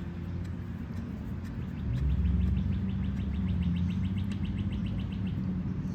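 Rapid, evenly spaced bird chirps, about six a second, from about a second and a half in until near the end, over a steady low rumble that swells about two seconds in.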